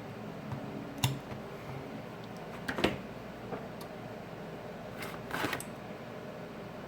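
A few short clicks and light rustles from handling small repair tools and adhesive strips on a workbench, over a steady background hiss. The clicks come about a second in, near three seconds, and as a small cluster around five seconds.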